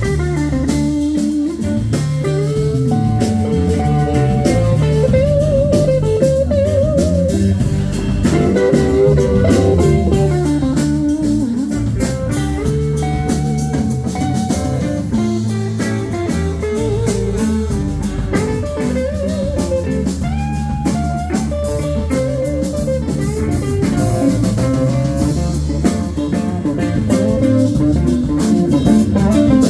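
A live band playing blues-style music, with guitar lines wavering in pitch over a drum kit.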